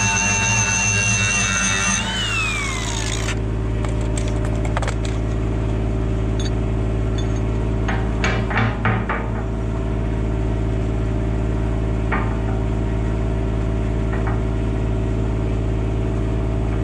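Angle grinder running with a high whine, switched off about two seconds in and winding down in a falling whine. After that an engine runs steadily, with a few knocks of metal being handled around the middle.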